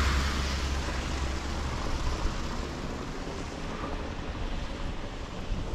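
Car engine running close by, a steady low hum that fades away about two seconds in, with wind noise continuing.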